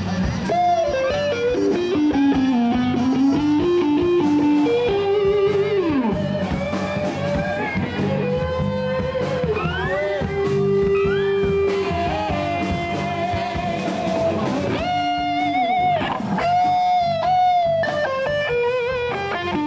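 Live rock band playing, led by an electric guitar line with bent, sliding notes and vibrato over the bass and drums.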